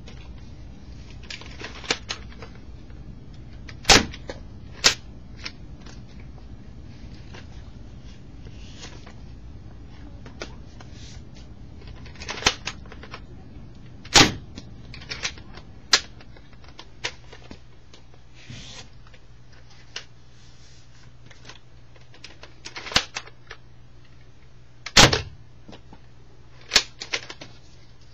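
Nerf Big Bad Bow, a plastic dart-firing bow, being loaded, drawn and fired: scattered sharp plastic clicks and clacks, with a few much louder snaps among them. A steady low hum runs underneath.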